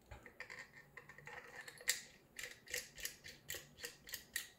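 A metal knurled thumb bolt being screwed by hand through a 3D-printed plastic clamp block into an M6 nut. The threads give a faint scraping, then a quick even ticking, about three a second, from about halfway.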